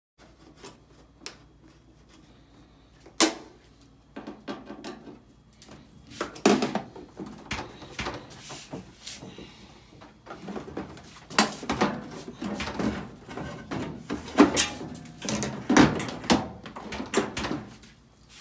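Clicks, knocks and plastic rattling as screws are worked out with a screwdriver and a Samsung front-loader's plastic detergent dispenser unit is pulled back in its metal top frame. There is a single sharp click about three seconds in, then busier clattering around six seconds and again from about eleven to seventeen seconds.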